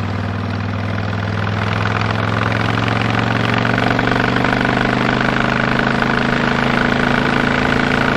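2007 Honda VTX 1300S's V-twin engine running steadily under way, with wind and road noise; the engine note grows a little louder about three seconds in.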